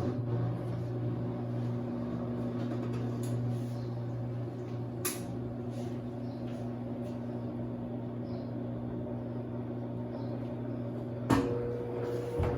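Consul CWC08 washing machine running with a steady motor hum. A click about eleven seconds in brings in a second, higher-pitched hum.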